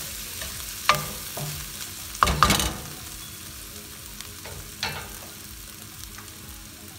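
Chicken pieces sizzling in a hot nonstick frying pan while a wooden spatula stirs them, with a few sharp knocks of the spatula against the pan. The loudest cluster of knocks comes a little past two seconds in; after that the stirring stops and the steady sizzle goes on.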